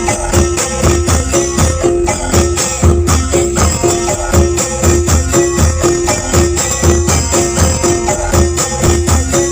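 Loud remixed dance music played through a large outdoor sound system, with a fast steady beat, heavy bass pulses, jingling tambourine-like percussion and a short repeated note.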